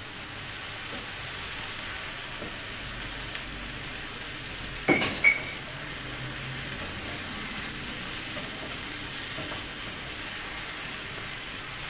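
A vegetable stir-fry sizzling steadily in a hot pan on a gas hob, just after water has been poured in. A single sharp clink rings out about five seconds in.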